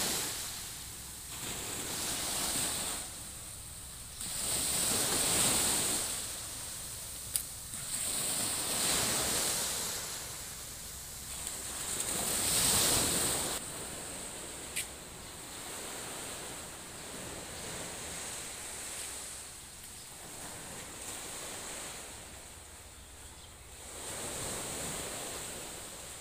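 Small sea waves washing up on the shore and drawing back, swelling and fading every three to four seconds, then settling into a softer, steadier rush. Two brief clicks come about a third and halfway through.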